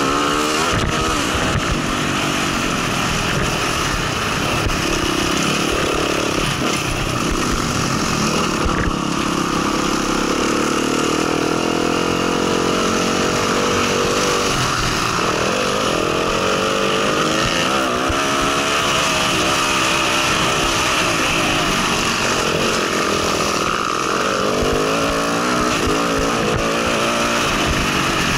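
Dirt bike engine running under way on a motocross track, its pitch repeatedly rising and falling as the throttle opens and closes.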